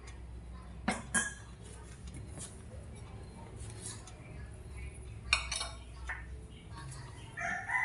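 Ceramic bowls and dishes clinking as they are set down on a table: two sharp clinks about a second in and a few more just after five seconds, over a low steady hum.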